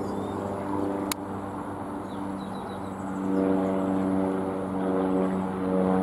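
Single-engine light propeller plane flying overhead, its steady engine drone growing louder about three seconds in. A single sharp click about a second in.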